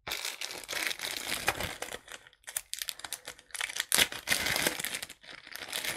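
A small plastic bag crinkling as it is handled, in irregular rustling spells with short breaks.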